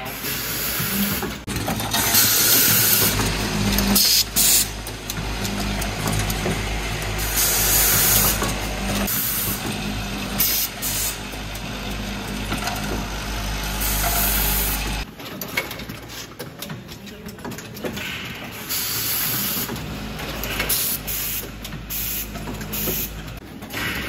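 Automatic wire crimping and connector housing assembly machine running, with repeated short hissing bursts and clicks from its moving parts. A low steady hum runs under it and stops about fifteen seconds in.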